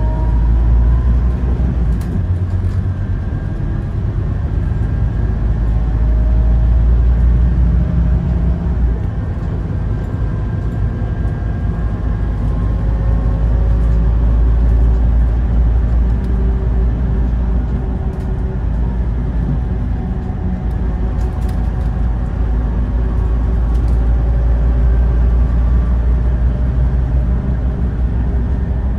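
Interior ride noise of a Scania OmniLink CK230UB city bus under way: a steady low engine drone and road rumble. Over it the ZF Ecomat automatic gearbox whines, rising in pitch several times as the bus pulls through its gears, with a few light clicks and rattles from the interior trim.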